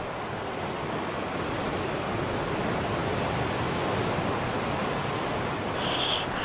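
Ocean surf: a steady rush of waves breaking. Near the end, short high-pitched tones start over it.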